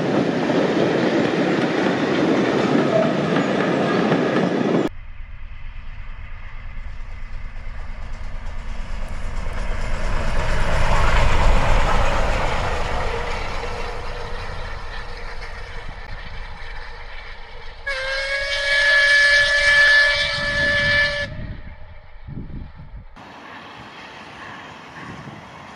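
Steam trains passing: a loud close pass cuts off about five seconds in, then a train's rumble swells and fades away. Near the end a locomotive's steam whistle sounds one steady chord-like blast for about three seconds.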